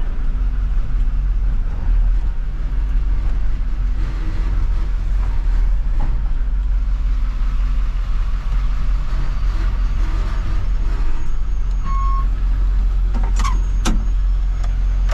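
Moving truck's engine and road noise heard from inside the cab as it drives: a steady low rumble. Near the end come a few sharp clicks and a brief falling squeak.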